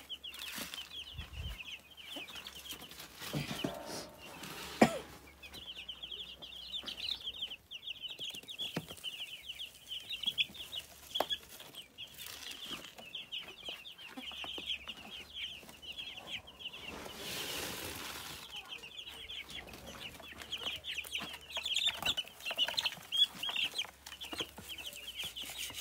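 A flock of young broiler chicks peeping continuously in rapid, high, overlapping chirps. Corn grain feed rustles as it is poured from a tin into a wooden trough, with a sharp knock about five seconds in and a short rush of grain past the middle.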